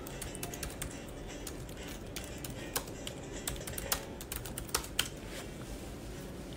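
Irregular light clicks of typing, with a few sharper taps in the middle, over faint background music.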